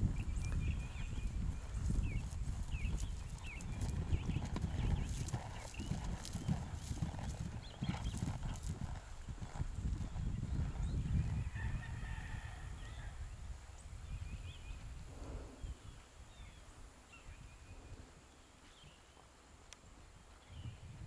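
Dull hoofbeats of a ridden horse moving over grass, growing fainter as it goes off across the field.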